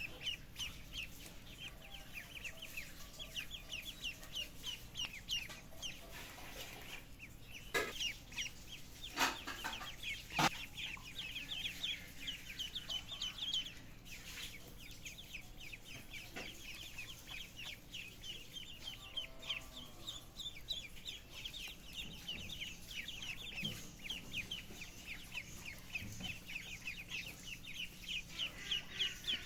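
Many young fowl peeping continuously: rapid, high, short chirps with no break. A few sharp knocks sound about eight to ten and a half seconds in.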